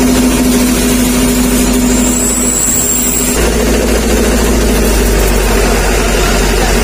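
Hino Dutro turbodiesel truck engine idling steadily through a 'srigala' wolf-sound exhaust tip. About three and a half seconds in, the low hum shifts slightly and then runs on steady.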